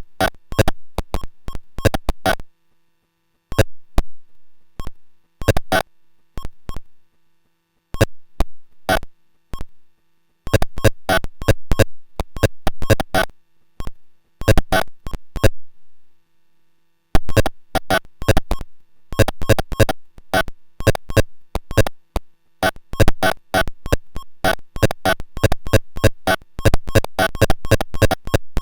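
Paratek "Космический шум" eurorack noise module, a Jupiter Storm-style square-oscillator noise source, giving out irregular crackling clicks and short bursts of harsh synthetic noise. Its sputtering stops briefly a few times and grows denser and busier in the second half.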